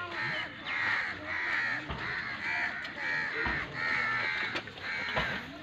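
Harsh cawing bird calls in a quick, steady series, about two calls a second.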